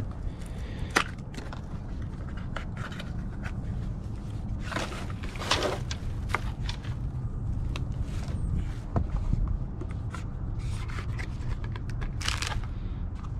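Cardboard skincare boxes and a plastic bag being handled and shuffled, giving irregular rustles, scrapes and crinkles, with a few louder flurries, over a steady low rumble.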